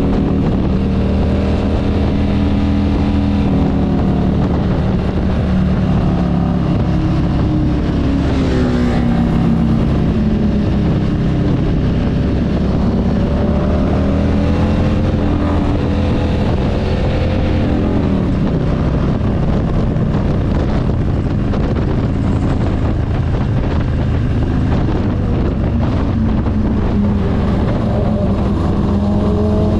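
Motorcycle engine running at road speed, its pitch rising and falling several times as the throttle is opened and rolled off, over steady wind noise.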